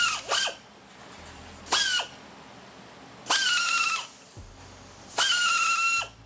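Long-handled metal cutter shearing the prongs off galvanized 14-gauge welded wire fencing, giving a short high squeal with each cut, about five in all, the later ones lasting most of a second.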